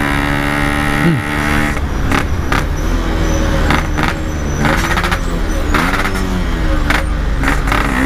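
Yamaha RX-King's two-stroke single-cylinder engine running in traffic, heard from the rider's seat. Its pitch rises and falls with small throttle changes, with a quick rev about a second in. Several brief sharp noises break in over it.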